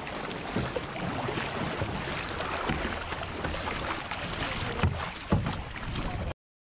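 Water splashing and rushing along the hull of a K2 racing kayak as the paddlers dig in and pick up speed, with irregular paddle-blade splashes and a couple of louder knocks near the end. The sound cuts off abruptly about six seconds in.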